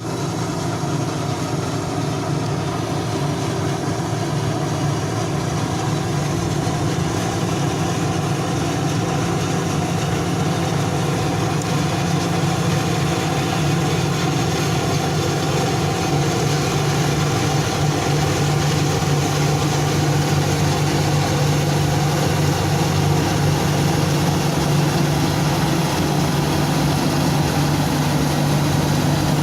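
Combine harvester running steadily in a wheat field: a continuous heavy engine hum with mechanical threshing noise, slowly growing louder as the machine comes closer.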